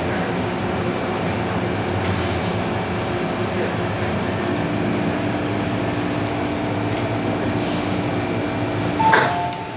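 Hong Kong MTR M-train running into an underground station and slowing to a stop, heard from inside the car as a steady rolling noise with motor and brake tones. Just after 9 seconds a click comes, then a two-note door chime, stepping from a higher note to a lower one, as the train stands at the platform.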